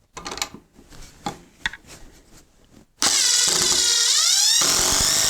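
A few faint handling clicks, then about three seconds in the Ryobi One+ HP brushless impact driver starts abruptly at full trigger, driving into wood. Its whine shifts in pitch as it works, and the lower, heavier part of the sound drops away about a second and a half later while the high whine carries on.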